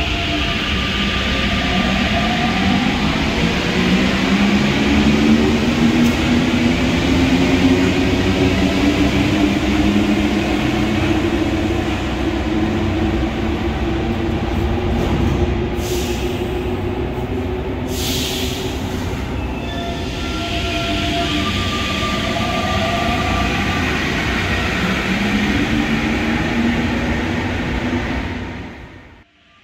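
Paris Métro MP89 rubber-tyred train pulling out of the station and accelerating, its traction motors whining in rising tones. Two short hisses come around the middle, and a second rising whine follows later.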